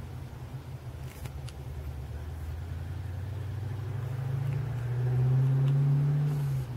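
1989 Ford Mustang GT's 5.0 V8 running with a deep, steady exhaust note. A little past four seconds in it rises slightly in pitch and grows louder, holds there, then cuts off abruptly near the end.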